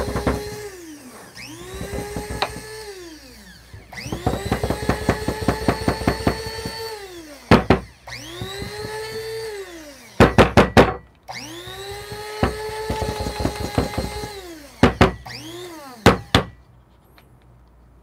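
Electric blade coffee grinder pulsed in about five bursts. The motor's whine rises as it spins up and falls away as it stops, with coffee rattling around the blade. Sharp knocks come between bursts as the grinder is shaken and knocked about, and it stops shortly before the end.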